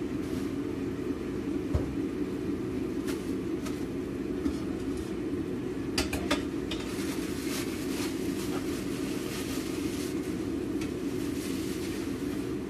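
Steady drone of a kitchen range hood fan running over the stove, with a few light clinks of utensils in a pan and a quick cluster of metallic clinks from a stainless steel pot lid being handled about six seconds in.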